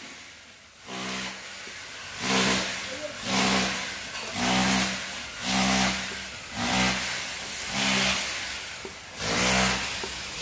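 Gas wok burner roaring, surging in regular pulses about once a second, each swell carrying a low hum.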